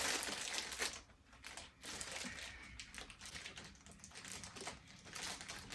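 Light rustling and small irregular clicks of packaging and parts being handled while a boxed appliance is unpacked. The rustling is louder in the first second, then drops to quieter ticking and crinkling.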